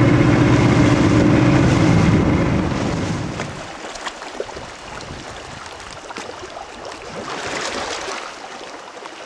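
A boat's engine running steadily, then fading away about three and a half seconds in, leaving the wash of water and wind.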